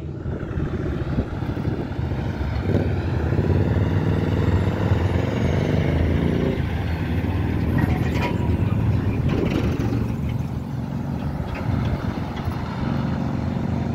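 Diesel engine of a loaded log truck running as the truck drives close past and on toward a roundabout. It is a steady, heavy low rumble, and the engine's pitch shifts over the first several seconds.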